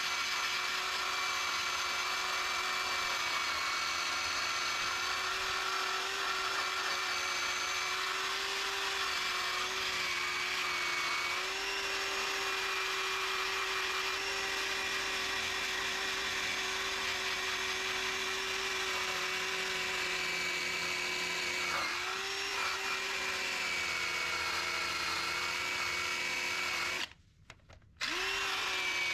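Handheld drill spinning an abrasive cleaning wheel against the steel of a car firewall, a steady motor whine with scrubbing, stripping the metal bare so a weld will penetrate. The whine sags briefly about two-thirds of the way through, then stops for about a second near the end and starts again.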